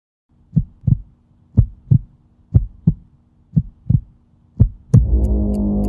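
Heartbeat sound effect: five deep double thuds, lub-dub, about one a second, over a faint steady hum. About five seconds in, a music bed with a ticking beat comes in.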